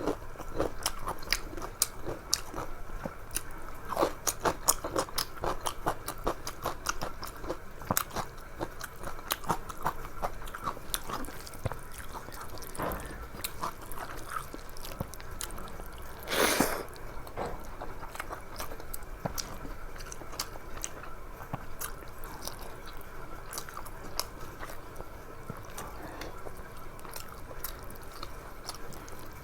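A person eating a rice-and-curry meal close to the microphone: steady chewing with many wet mouth clicks and smacks. About 16 seconds in there is one louder, hissing burst lasting about half a second.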